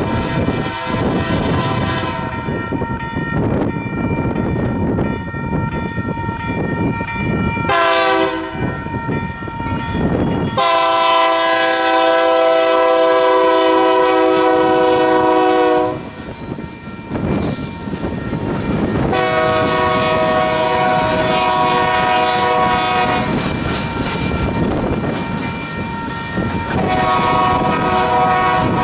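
Union Pacific diesel locomotive sounding its horn in several blasts as a freight train passes; one blast about eight seconds in slides down in pitch as the locomotive goes by, then a long, loud blast of about five seconds follows. Steel wheels rumble and clatter on the rails underneath.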